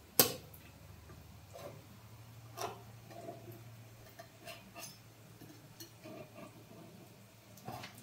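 A single sharp click or knock just after the start, then several fainter, irregularly spaced clicks and knocks.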